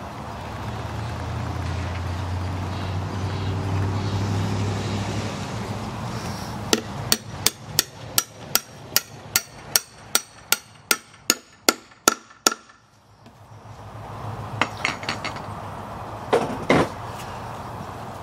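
Hammer driving a long nail into a pressure-treated 6x6 timber joint: a steady run of about eighteen sharp blows, roughly three a second, starting about seven seconds in. A low rumble comes before it, and a few scattered wooden knocks follow.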